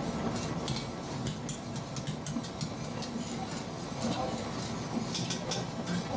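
Busy restaurant kitchen: metal utensils clink and scrape over a steady low hum, with voices in the background.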